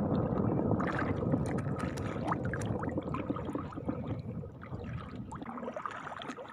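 Hand scoop net being swept and lifted through shallow seawater: splashing and sloshing, with water draining and dripping through the mesh. Loudest in the first few seconds, then easing off.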